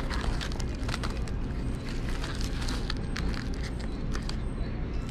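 Foil-lined paper sandwich wrapper crinkling in quick irregular crackles as hands unfold it, over a steady low hum.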